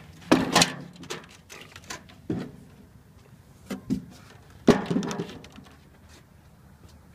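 A handful of sharp knocks and clunks at uneven intervals, the loudest near the start and about five seconds in.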